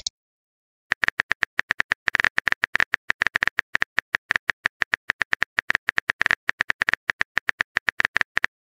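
Smartphone keyboard typing clicks: a long, quick, even run of key-tap clicks, several a second, starting about a second in, as a text message is typed.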